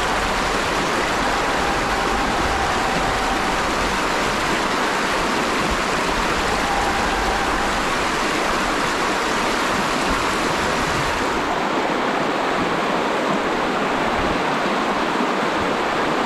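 Steady rush of flowing creek water, its highest hiss thinning a little about eleven seconds in.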